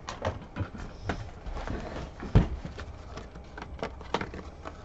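Cardboard 1991 Fleer baseball card box of wax packs being handled and set down on the table: a run of light taps and knocks, the loudest about halfway through, as the lid flap is worked open.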